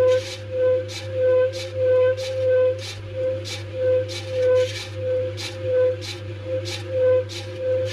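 Washing machine drum turning with balloons inside: a regular swish about every two-thirds of a second over a steady low hum, with a wavering whistle-like tone that pulses in time with the swishes.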